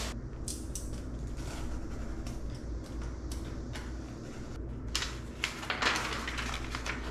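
A large flat cardboard furniture box being handled and opened: scattered knocks and scrapes of cardboard, then paper rustling from about five seconds in as the instruction sheets are pulled out. A steady low hum runs underneath.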